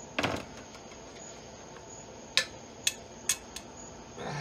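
Sharp metallic clinks of hand tools working cylinder head bolts loose. A quick cluster comes just after the start, then three single clicks about half a second apart a little past two seconds in.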